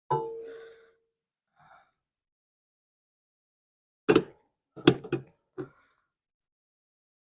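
A metal clank with a short ringing tone that fades over about a second, then, about four seconds in, a quick run of four sharp knocks and clanks. These come from metal parts of a kerosene heater being handled and set in place during reassembly.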